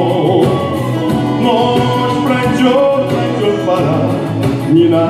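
Live band music: a song on electronic keyboard with conga drums, and a man singing.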